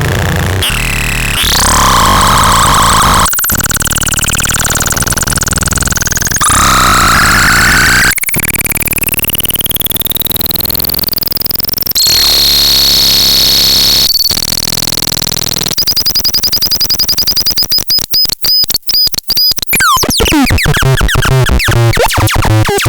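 Synthesizer making noisy electronic tones that jump between pitches. A long rising sweep climbs over several seconds, then a steady high tone holds. Near the end the sound breaks into a fast stuttering pulse.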